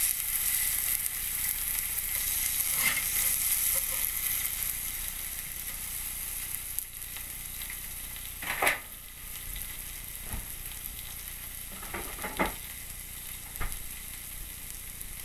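Steaks sizzling on a hot, ridged cast iron grill pan: a steady high frying hiss that slowly fades, with a few sharp clicks and pops scattered through it.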